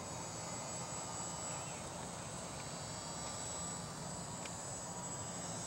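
Faint, steady high-pitched whine of an E-flite UMX Timber micro RC plane's electric motor and propeller flying overhead, with thin steady high tones above it.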